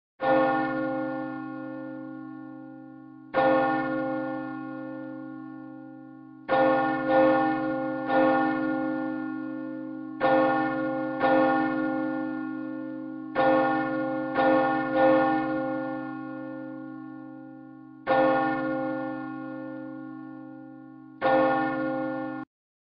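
A single church bell struck twelve times in an uneven pattern: some strokes stand alone a few seconds apart, others come in quick twos and threes. Each stroke rings on and dies away. The ringing cuts off suddenly near the end.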